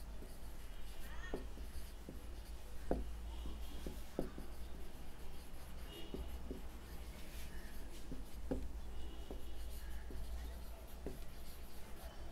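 Red dry-erase marker writing on a whiteboard in short, irregular strokes, over a steady low room hum.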